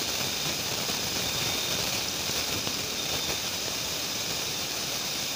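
Steady hiss of flowing river water, with faint thin high tones over it.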